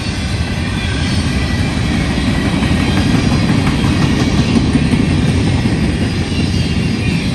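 Freight cars of a manifest train rolling past, a steady loud rumble of steel wheels on the rails.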